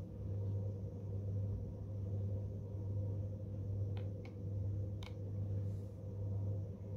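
Steady low hum that swells and dips gently in level. Three faint light clicks come about four and five seconds in, from a syringe being picked up and handled on a plastic pocket scale.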